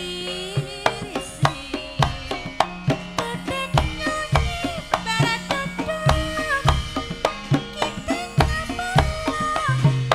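Javanese campursari band playing an instrumental passage: hand-drum strokes with deep thuds set a brisk rhythm under a sliding melody line.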